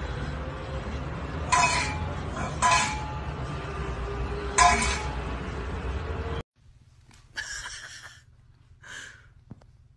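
Stainless steel pet food bowl clinking as a cat paws at it on a tiled floor: three sharp metallic knocks with a brief ring. After an abrupt cut, a couple of soft rustles.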